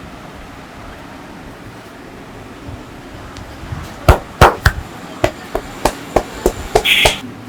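Percussive massage: hands striking a person's body in a quick run of about a dozen sharp smacks, about three a second, starting about four seconds in, the first two the loudest. A brief hiss comes near the end.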